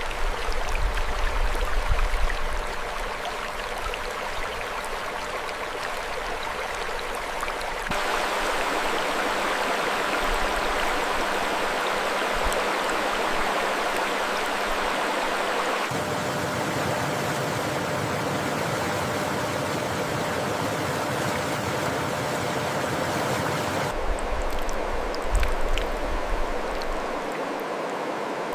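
Mountain stream water rushing steadily, a dense even hiss of flowing water whose tone shifts abruptly about every eight seconds.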